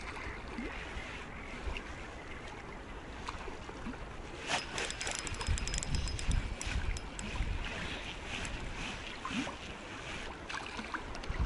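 Wind on the microphone and water lapping, with a spinning reel being cranked from about four and a half seconds in: a quick run of clicks and a faint whine as a roach is reeled in.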